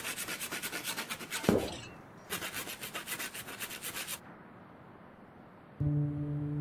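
Hand saw cutting back and forth through a young tree's trunk in quick, even strokes, in two runs with a short break about two seconds in and a knock just before it. The sawing stops a little past four seconds, and soft sustained music begins near the end.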